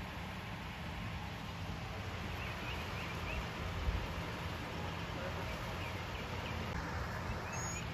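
Outdoor ambience: a steady low hum under a soft noisy background, with a few faint bird chirps a couple of seconds in and again near the end.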